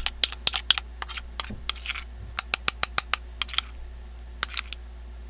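Metal spoon stirring a thick paste in a small glass bowl, clinking and scraping against the glass in quick, irregular runs of clicks.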